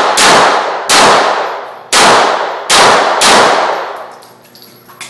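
Glock pistol firing five shots at an uneven pace, roughly a second apart, each followed by a long echoing decay.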